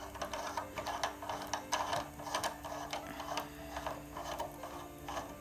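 Plastic phone-holder clamp on a ring light being worked by hand, its knob turned as a phone is pressed in, giving a run of small irregular clicks and rattles over a faint steady hum.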